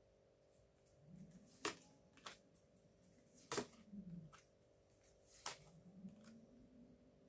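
Tarot cards being slid off the deck and laid down on the spread: a handful of soft card clicks and taps, the sharpest three about two seconds apart.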